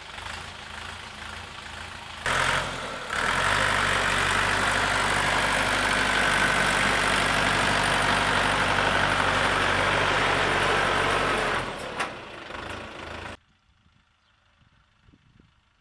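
DW 404 A mini-tractor's diesel engine running with the rotary tiller, quieter at first, then a loud steady run from about three seconds in, easing off near twelve seconds. The sound cuts off suddenly about thirteen seconds in, leaving near silence.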